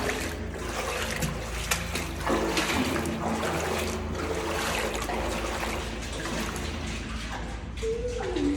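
Shallow water trickling and splashing in a tunnel.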